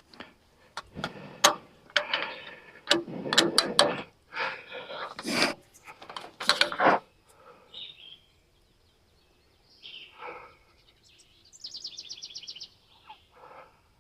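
Knocks and metal clatter from hands-on work on a band sawmill's blade and wheel assembly, busiest in the first half, followed near the end by a quick run of about a dozen even clicks.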